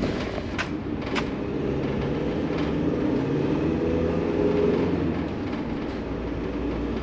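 VW Crafter van's turbodiesel engine and road noise heard from inside the cab while driving. The engine note rises as the van accelerates away and eases off near the end, running smoothly on its new timing belt. Two brief clicks come in the first second or so.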